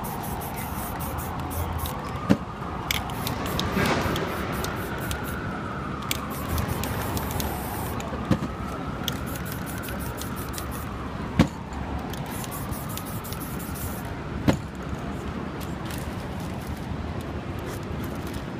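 Aerosol spray-paint cans hissing in short bursts as paint is sprayed onto a canvas, with a few sharp knocks. Under it a distant emergency siren wails slowly up and down, fading out about three-quarters of the way through, over steady street traffic.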